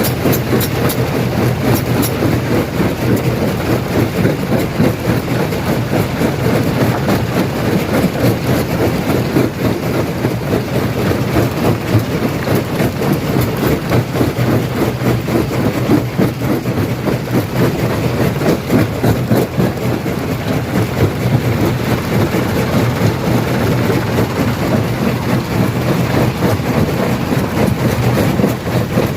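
Stone crusher running and crushing rock: a steady low machine hum under a dense, unbroken clatter and cracking of stones.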